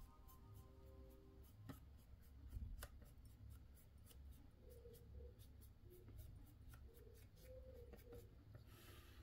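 Near silence: a faint low hum with scattered faint small clicks and taps.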